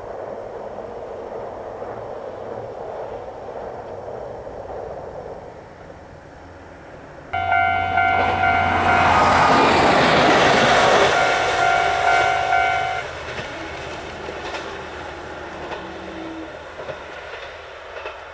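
A diesel railcar's horn starts suddenly about seven seconds in, a held chord of several tones lasting about five seconds, as the train passes close. Its engine and wheel noise swell to a peak during the horn and then fade as it moves away. A steadier, quieter rumble runs before it.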